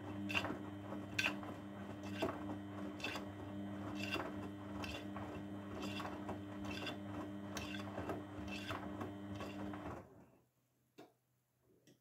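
Grundig GWM4762WE20 front-loading washing machine tumbling its wash: the drum motor hums steadily and there is a soft knock about once a second as the wet load turns. The motor stops suddenly about ten seconds in and the drum comes to rest, leaving only a couple of faint clicks.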